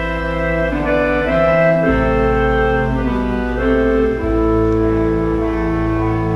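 Slow, solemn memorial music for a minute of silence, on an organ-like keyboard: sustained chords that shift every second or so over a steady low bass, ending on one long held chord.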